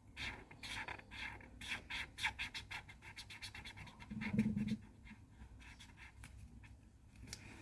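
A pencil scribbling rapidly back and forth on paper as a drawing is coloured in, the strokes thinning out in the second half. There is a brief low hum about four seconds in.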